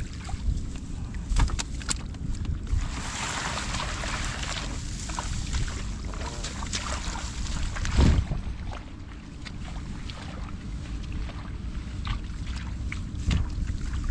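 Wind buffeting the microphone, with rustling and splashing from hands digging in wet mud and grass. There is a single thump about eight seconds in.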